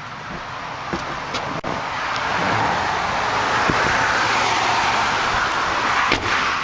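Steady outdoor wind and highway traffic noise that grows louder over the first couple of seconds, with a few sharp clicks and knocks, the strongest about six seconds in.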